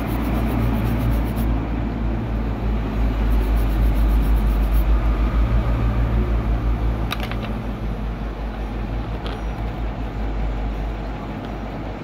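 Steady low droning background noise with a strong hum, swelling a few seconds in and easing off again, with a couple of faint clicks about seven and nine seconds in.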